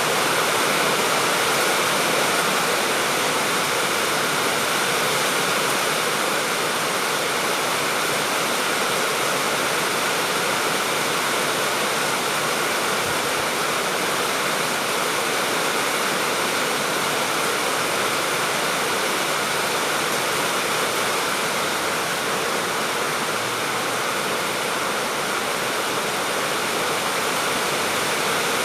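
Steady, even rain: a dense continuous hiss of falling rain with no thunder or breaks.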